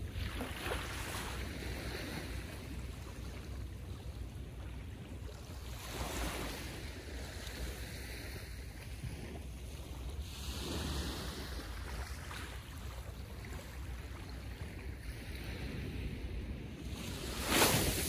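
Small ocean waves lapping and washing onto the beach, each one swelling and then hissing back. Several waves come in at irregular spacing, and the loudest washes in near the end.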